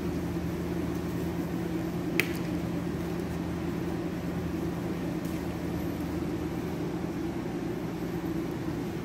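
Steady mechanical hum of room equipment, with one sharp click about two seconds in.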